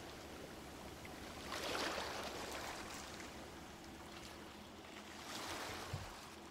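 Recorded sea waves washing in, fairly quiet, two slow swells that rise and fall, about two seconds in and again about five seconds in, with a soft thump near the end.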